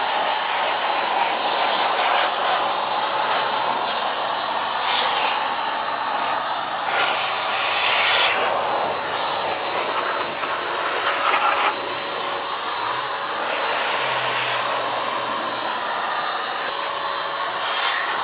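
Handheld electric air blower (Chemical Guys Pro Blow) running continuously with a steady high whine over rushing air, blowing leftover rinse water out of a washed engine bay. The air rush swells briefly a few times as the nozzle is aimed into different nooks.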